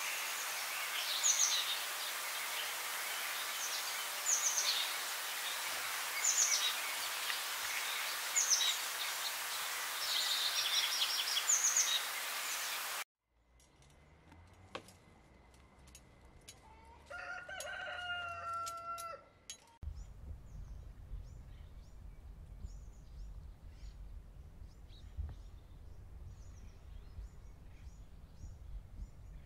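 Chickens in a yard with small birds chirping over a steady hiss. About seventeen seconds in, a rooster crows once, a pitched call of about two seconds; after it a low rumble with small clicks.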